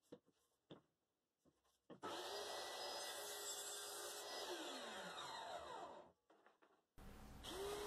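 Benchtop table saw switched on, its motor running with a steady whine while a notch is cut in a wooden leg, then switched off and falling in pitch as the blade coasts down. A few light clicks come before it starts, and another motor starts up near the end.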